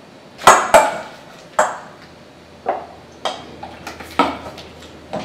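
Kitchen dishes and utensils clattering: about eight separate sharp clinks and knocks with short ringing, the loudest two close together about half a second in.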